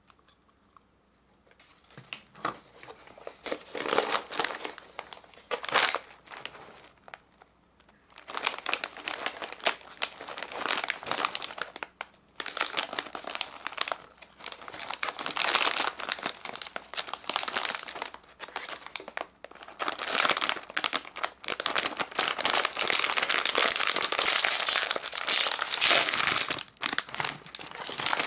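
Plastic snack bags of puffed corn snacks crinkling as they are handled and squeezed, in irregular bursts, then one bag pulled open at the top near the end.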